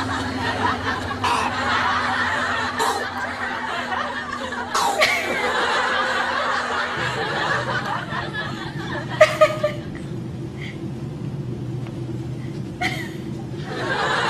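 Laughter, dense for the first half and then thinning to a few short laughs, over a steady low hum.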